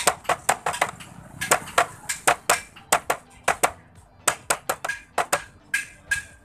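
Newly fitted plastic tail cowl of a Hero Splendor motorcycle rattling as it is shaken by hand: a quick, uneven series of sharp knocking clacks, several a second. The owner suspects the knock comes from the cowl touching the tail light because there is no gap between them.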